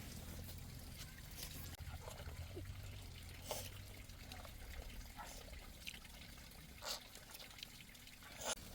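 Faint trickling water over a low steady hum, with several short, sharp little sounds scattered through it.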